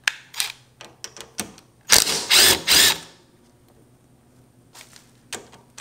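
A cordless ratchet runs in several short trigger bursts, loudest about two seconds in, backing out the 12 mm bottom bolt of a Honda Navi's rear shock. A few light metal clicks follow near the end as the bolt is worked out by hand.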